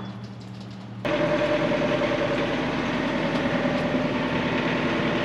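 Yanmar ViO55 mini excavator's diesel engine running steadily. It comes in suddenly about a second in, after a quieter moment.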